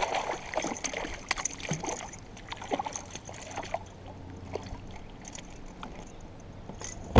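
Water splashing as a small hooked pike thrashes at the surface beside a kayak. A burst of splashing at the start gives way to scattered short splashes over the next few seconds, then quieter lapping water.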